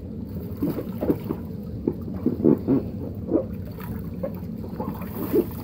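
Water sloshing and splashing in a shallow inflatable paddling pool as a child ducks under and moves about, in irregular short splashes over a steady low rumble.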